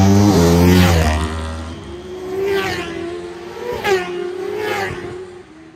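Racing motorcycles at full throttle. One runs very loud and fades over the first two seconds, then another engine climbs in pitch in three rising sweeps before dying away near the end.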